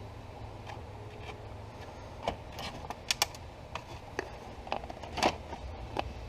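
Scattered sharp clicks and taps of plastic steering-column trim and turn/wiper switch parts being handled and worked loose, with a few louder clicks about two, three and five seconds in, over a steady low hum.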